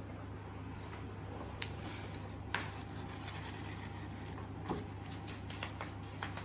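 Handling noise from a plastic MIDI keyboard and its packaging: light rustles and scrapes with a few sharp clicks, the loudest about two and a half seconds in, over a steady low hum.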